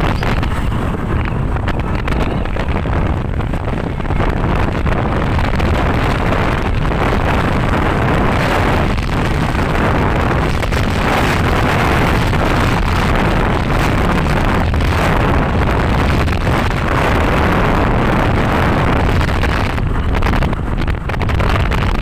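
Steady noise of a moving vehicle on the road with heavy wind buffeting the microphone; no horn stands out.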